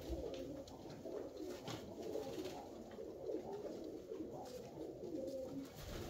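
Several Alföldi-Körösi tumbler pigeons cooing at once in an enclosed loft, their overlapping coos running on without a break.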